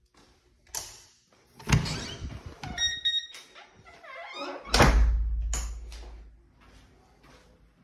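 A house door opened with a sharp knock, a short high electronic beeping, then the door shut with a heavy thud whose low boom lasts over a second.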